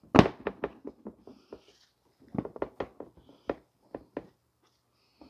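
Sharp clicks and knocks of a car's plastic bumper cover and its retaining tabs being pried and worked loose. A loud knock comes just after the start, followed by quicker clicks, then a second cluster about halfway through and a few more later.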